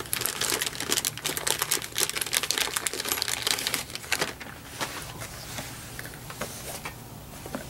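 Small hose clamps and hardware being rummaged through: a rapid clatter of light clicks and rattles for about four seconds, then a few scattered clicks, over a steady low hum.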